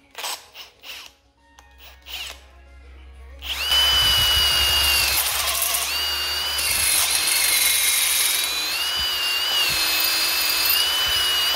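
A handheld power drill bores a 27/64-inch hole through a drill guide into a cast-iron Dart LS Next engine block. This drills out a head-bolt hole to be tapped for a 1/2-inch head stud. After a few short handling knocks, the drill starts about three and a half seconds in and runs steadily with a high whine that drops in pitch for a couple of seconds midway, then comes back up.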